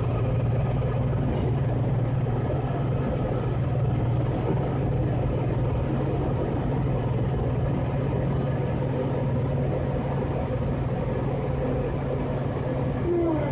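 Washington Metro subway car running, heard from inside the car: a steady rumble with a low hum underneath and a faint high whine that comes and goes.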